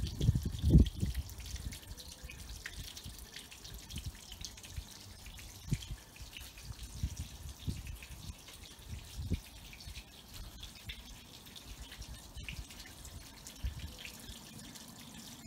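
Water from a garden hose splashing and spreading across the bare fibreglass floor of an empty pond as it starts to fill. There are a few low thumps in the first second.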